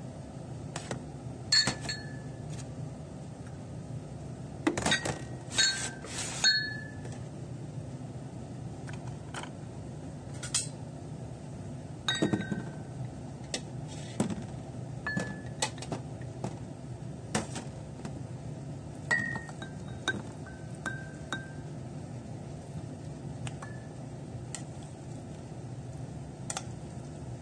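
Porcelain chawanmushi cups clinking as they are handled and set down, with a wooden spoon tapping against them: short, sharp, ringing clinks, bunched together about five to seven seconds in and again around twelve seconds, then sparser taps.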